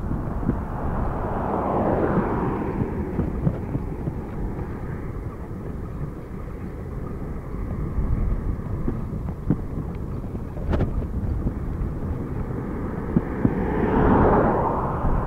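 Wind rumbling on a phone microphone carried on a moving bicycle, with vehicles passing close by on the road: one swells up and fades about two seconds in, and an SUV passes near the end, each a rise and fall of tyre and engine noise.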